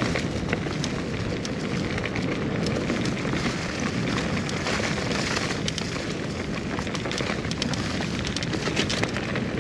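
Wind rushing over the microphone of a riding mountain biker's camera, with tyre and trail noise and scattered sharp clicks and rattles from the bike going over bumps.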